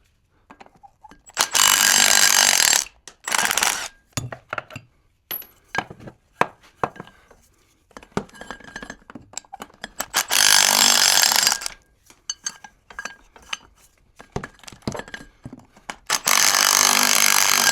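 Power tool, an impact wrench, running in three bursts of about a second and a half and one short one, undoing the guibo (propshaft flex disc) bolts on a BMW E36. Metal clicks and knocks come between the bursts as the socket is moved from bolt to bolt.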